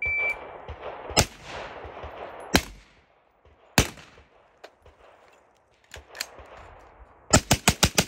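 AR-style carbine fired: three single shots about a second apart, two quieter shots, then a quick string of about six shots near the end.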